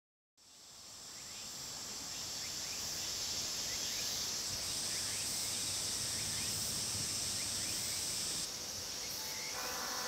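Cicadas buzzing in a steady high-pitched drone, fading in over the first couple of seconds; part of the buzz stops about eight and a half seconds in. Faint steady tones begin near the end.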